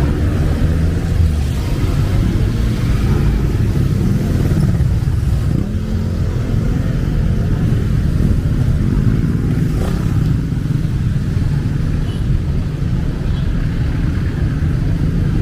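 Street traffic: car and motorcycle engines running and passing, over a steady low rumble.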